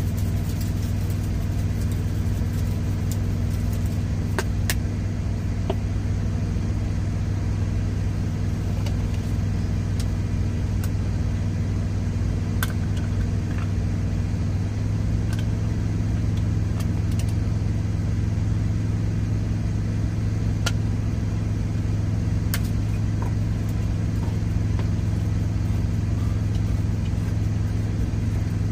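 A semi truck's diesel engine idling: a steady low hum that shifts slightly in pitch about halfway through. Scattered light clicks and taps come from cans and spice jars being handled.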